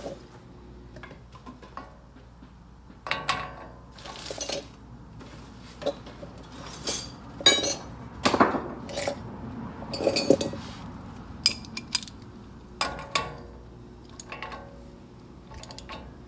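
Metal parts and tools clinking and clattering during hand work on a truck's front wheel hub and axle end: a string of separate sharp clinks with short pauses between, the loudest cluster in the middle.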